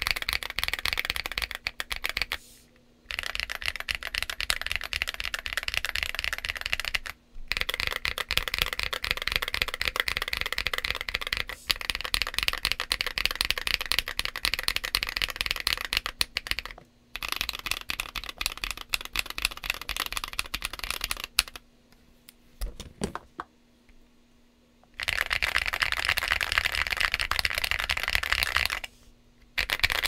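Fast typing on a Drop ALT high-profile mechanical keyboard fitted with Akko Lavender switches and SA-profile Oblotzky keycaps: a dense run of keystroke clacks. The typing breaks off briefly a few times, and stops for a few seconds in the latter part, apart from a couple of single key clicks.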